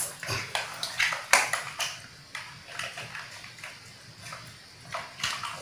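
Plastic toy building blocks clicking and clattering as they are picked up, pressed together and set down on a tiled floor: irregular light knocks, several in the first two seconds and a couple more near the end.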